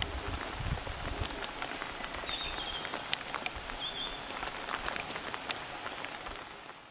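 Steady rain falling, with many scattered drop clicks. A few short, high whistled bird notes come about two and a half and four seconds in. The sound fades out at the very end.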